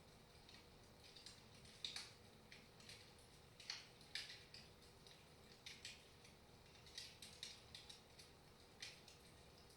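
Wood fire crackling faintly in a fireplace: irregular sharp pops and snaps, a few a second, some louder than others, over a low hiss.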